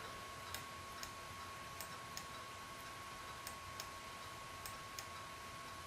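Faint, irregular clicks of someone working a laptop's mouse controls, about eight in six seconds, over a steady low hiss with a thin, high, constant whine.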